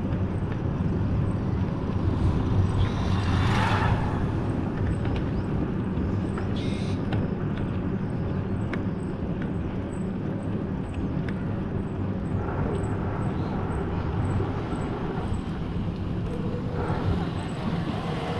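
Vehicle driving on an open road: steady engine and road rumble. Another vehicle swishes past about three and a half seconds in, and a second one approaches near the end.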